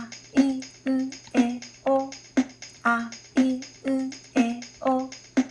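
A woman chanting the Japanese vowels "a, i, u, e, o" one short syllable at a time, about two a second, over a backing beat with tambourine-like ticks.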